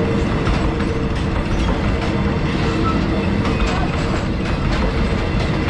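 Passenger train cars rolling past at close range: a steady rumble of the wheels on the rails with scattered clicks and clatter, and a faint steady hum underneath.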